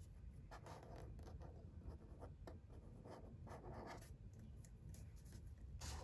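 Faint scratching of a felt-tip marker on paper, drawn in a run of short back-and-forth strokes while outlining.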